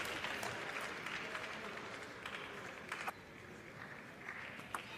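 Arena audience applauding after a table tennis point, the clapping dying away over the first three seconds. A few sharp, separate clicks of a table tennis ball follow.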